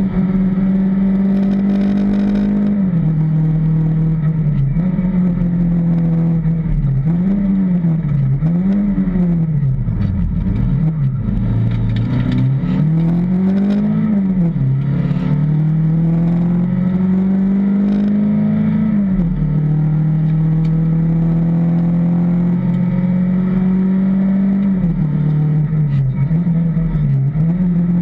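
Fiat Punto rally car's engine at speed, heard from inside the stripped, caged cabin. The revs drop sharply about three seconds in and again about two-thirds of the way through, as at upshifts, and rise and fall several times in quick succession through the middle.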